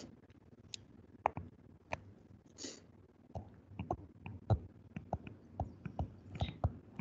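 Faint, irregular clicks and taps of a stylus on a tablet screen during handwriting, with a couple of soft scratchy strokes.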